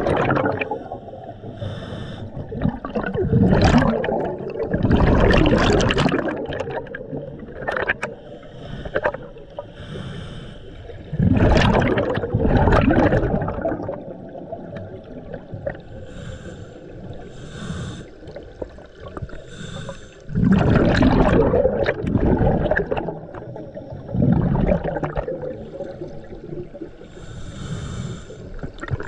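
Scuba diver breathing through a regulator, heard underwater through the camera housing: loud gurgling rushes of exhaled bubbles every few seconds, with quieter hissing inhalations between them.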